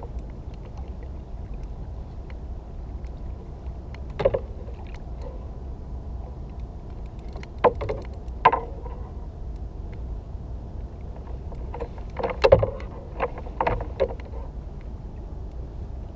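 Steady low rumble of open water and air on the microphone of a kayak-mounted camera, broken by a few short, sharp sounds: one about four seconds in, two around eight seconds, and a cluster between twelve and fourteen seconds.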